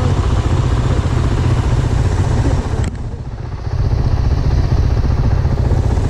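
Motorcycle engines idling with a steady low pulsing. About three seconds in there is a sharp click, after which the higher sounds drop away for about a second before coming back.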